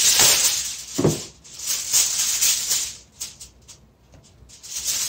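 Aluminium foil being pulled off its roll and handled, with loud crinkling and rustling and a dull knock about a second in.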